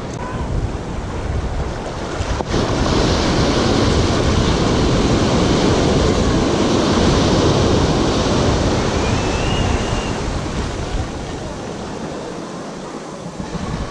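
Ocean surf breaking and washing up around the shore rocks: a wave comes in about two seconds in, stays loud for several seconds, then eases off near the end. Wind buffets the microphone underneath.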